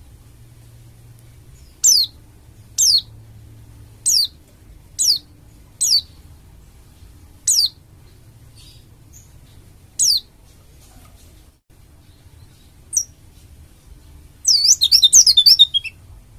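Pleci dakun bali white-eye giving sharp, high calls that slide down in pitch, about eight of them spaced a second or more apart, then breaking into a quick twittering burst of song near the end.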